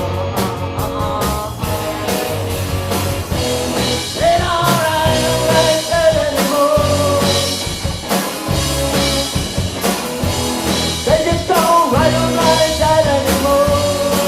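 A rock band playing a song, with bass, drums and guitars. A long held melody note comes in twice, about four seconds in and again near the end, between the sung lines.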